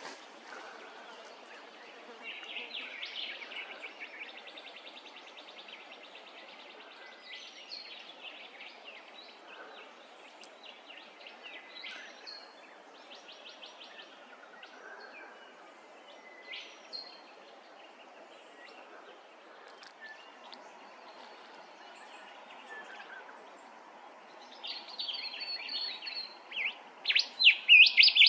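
Wild birds chirping and trilling, with several rapid trills in the first few seconds over a faint steady background hiss. Near the end a bird breaks into a loud run of fast chirps.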